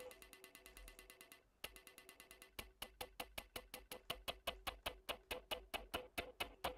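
Sampled spoon hit retriggered by a Synthstrom Deluge in a fast repeating pattern of clicky, ringing metallic pings. The pattern breaks off briefly about a second and a half in. It then comes back at about four hits a second, growing louder, while the sample's playback speed is being changed.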